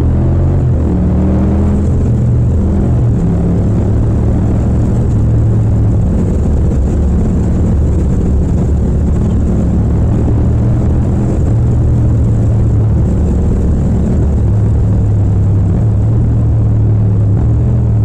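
Yamaha MT-07's parallel-twin engine on the move, pitch climbing under acceleration in the first couple of seconds. It pulls up through the gears, then eases off and shifts back down near the end.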